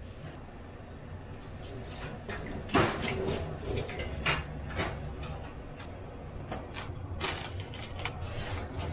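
Kitchen handling clatter: scattered light clicks and knocks of utensils and fittings around a stainless-steel sink, with a louder knock about three seconds in and a quick run of clicks near the end, over a steady low hum.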